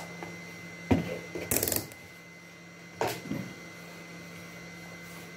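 Handling noises on a repair bench: a sharp click, a knock about a second in, a short rattling clatter, and another knock about three seconds in, over a steady low hum.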